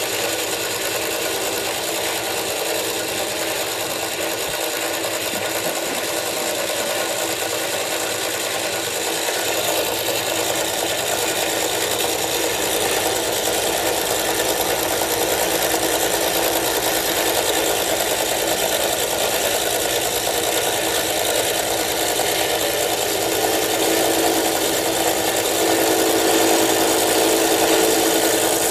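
Manual milling machine running, its end mill cutting the lock relief into a frame lock knife's frame. A steady machining noise that grows a little louder about ten seconds in and again near the end.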